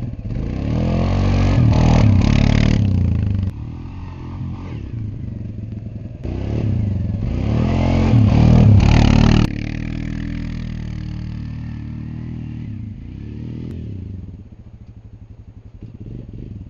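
ATV engine revving hard in two bursts, its pitch climbing and falling as the quad is throttled up and eased off; each burst cuts off abruptly. After that the engine runs quieter and steadier, then drops away near the end.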